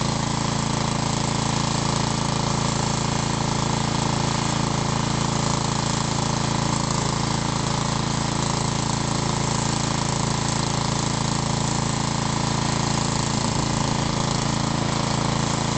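Small gasoline engine of a Ryan walk-behind lawn core aerator running steadily at an even speed, with no change in pitch, while the machine stands still.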